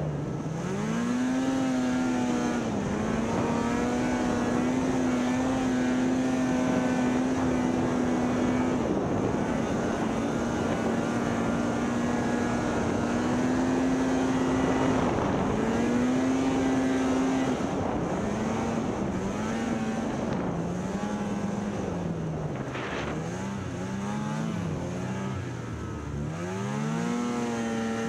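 Snowmobile engine running under throttle as the sled travels over snow. Its pitch holds mostly steady, drops briefly a few times, wavers up and down in the last third as the throttle is eased and reapplied, then climbs again near the end.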